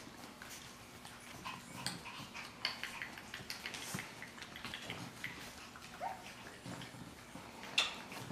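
Shih Tzu puppy making a few short, squeaky sounds while being held and handled, among scattered clicks and rustles, with a sharp click near the end.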